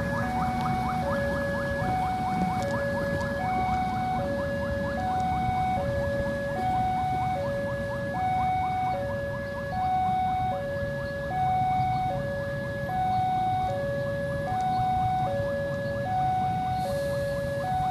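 Railway level-crossing warning alarm sounding a steady hi-lo signal: a higher and a lower tone alternate, each lasting about a second. A low rumble runs beneath it.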